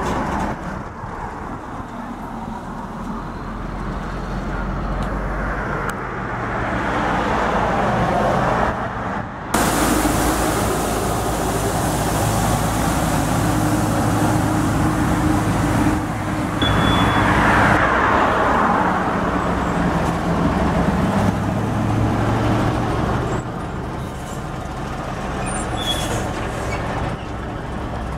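Diesel semi-trucks pulling belly-dump gravel trailers running and driving past at low speed. About a third of the way in the sound switches abruptly to a street sweeper running with a steady hissing rush over its engine. Near the end the heavy truck engines return.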